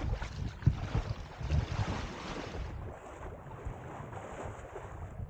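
Wind buffeting the microphone aboard a sailboat at sea, with the wash of water. The gusts are stronger in the first half and settle to a steadier, quieter rush.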